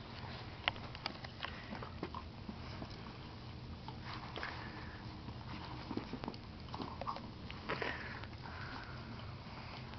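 Two Doberman Pinscher puppies roughhousing: quiet scuffling and play-biting noises with scattered light clicks.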